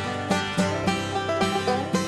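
Background music: an upbeat bluegrass-style tune with plucked banjo and guitar over a steady beat.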